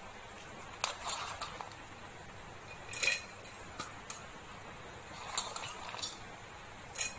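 A hand scooping crisp pieces of fried dough off a stainless steel plate into a small steel bowl: scattered short crunchy rustles and light clinks against the metal, the loudest about three seconds in.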